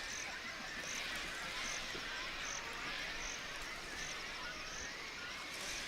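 Outdoor wetland ambience: a steady background hiss of natural sound with a short high chirp repeating regularly, about every 0.8 seconds.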